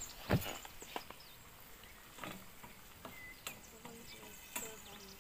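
Quiet outdoor ambience: a few light knocks and clicks, the loudest about half a second in, with brief faint high chirps.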